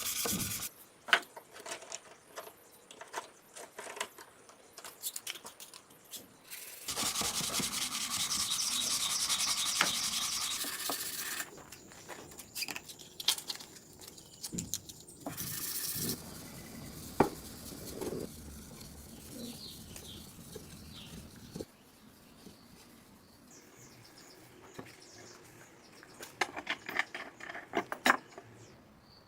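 Hand work on a workpiece: irregular rubbing and scraping with scattered clicks and knocks, and one longer steady stretch of rubbing about a quarter of the way in.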